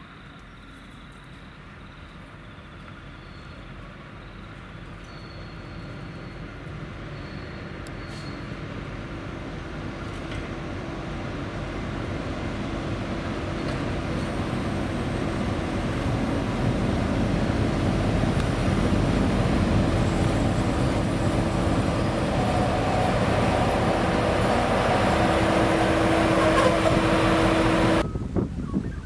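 A train approaching, its engine and running noise growing steadily louder over about eighteen seconds, then holding loud with a steady engine tone before cutting off suddenly near the end.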